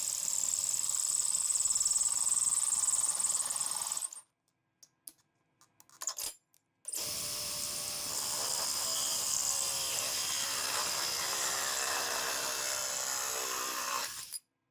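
Cordless drill boring holes into a plastic lamp globe at reduced speed. It runs for about four seconds, stops for a moment with a few short clicks, then drills again for about seven seconds, its pitch wavering as the bit cuts.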